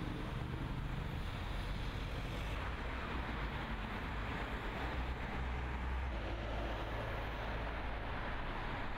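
Steady low drone of a boat's engine with wind rushing over the microphone, heard over the noise of open water.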